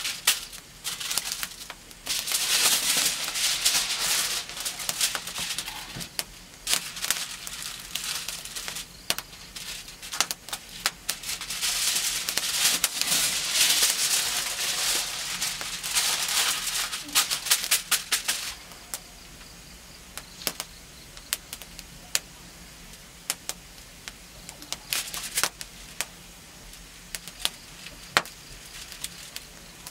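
Sheet of aluminium foil being pulled off the roll, smoothed and crinkled by hand, in long loud rustling, crackling stretches. After about 18 seconds it quietens to a steady low background with scattered sharp crackles.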